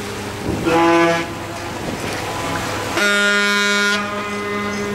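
Ship's horn sounding two blasts over a steady engine hum: a short, higher-pitched blast about a second in, then a longer, lower blast about three seconds in.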